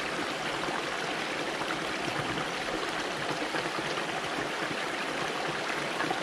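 Small stream running over rocks: a steady, even rush of water with no breaks.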